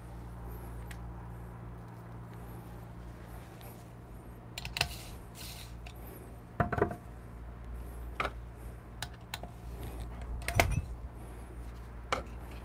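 A few scattered light clinks and knocks of metal barista tools against a portafilter and its stand during espresso puck prep, over a steady low hum.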